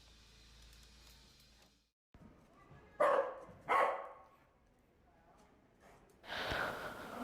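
A dog barking twice, two short barks less than a second apart about three seconds in, with a fainter sound near the end.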